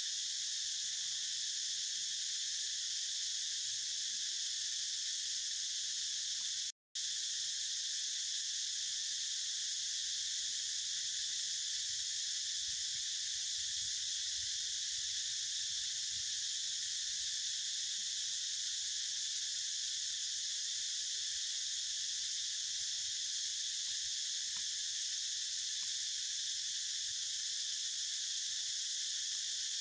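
Steady high-pitched drone of an insect chorus in woodland, unchanging throughout, with a split-second dropout to silence about seven seconds in.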